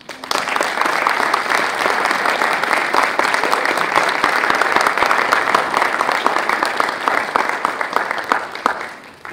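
Audience applauding: many hands clapping together in a dense patter that starts suddenly, holds steady and tails off near the end.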